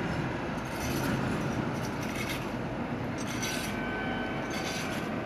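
Steady rumble of a running engine in the background, with a few faint clicks.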